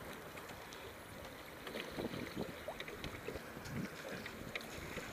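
Water sloshing and splashing against a wooden rowing boat's hull as it moves, with oar blades in the water and small irregular splashes and clicks from about two seconds in.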